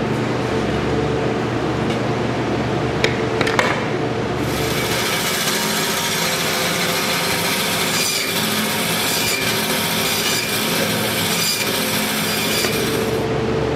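Meat saw cutting through lamb carcass bone: a steady, gritty sawing noise that starts about four seconds in and stops about nine seconds later, over a steady machine hum. Two light knocks come just before the sawing starts.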